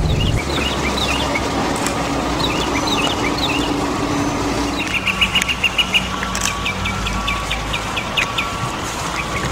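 Birds chirping: short high calls, scattered at first and then in quick rapid series, over a steady background hiss and a low drone.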